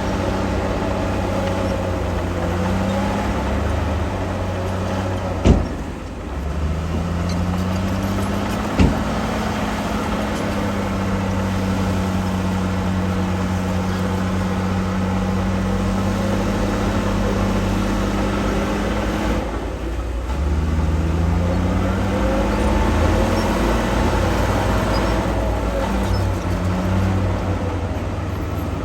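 Heavy diesel engine of earthmoving equipment running under load, its pitch rising and falling as it works, with a brief dip in engine sound about twenty seconds in. Two sharp metallic knocks stand out, about five and nine seconds in.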